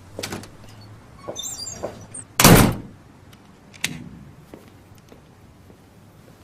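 A few scattered knocks and clicks, the loudest a short, heavy thud-like burst about two and a half seconds in, with a sharp click a little over a second later.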